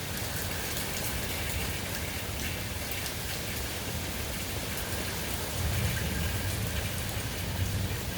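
Summer rain falling steadily: a dense hiss of drops with many separate drop ticks. A low rumble comes up about five and a half seconds in.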